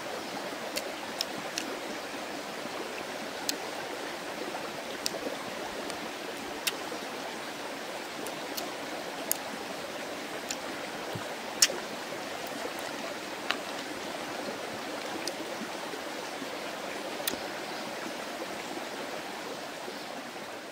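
Steady rushing of a nearby stream over stones, with about a dozen short, sharp clicks scattered through it at irregular intervals.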